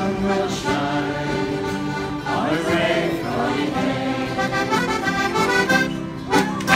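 Accordion playing a traditional Newfoundland tune, with voices singing along. A couple of sharp knocks near the end.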